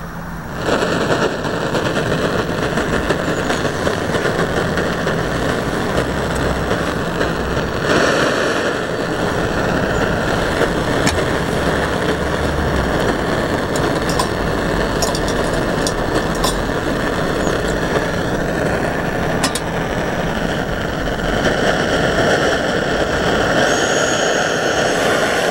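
Fire Maple FMS-300T canister gas stove lit with a click, its burner then running with a steady hiss from about half a second in. The hiss grows a little louder in the last few seconds.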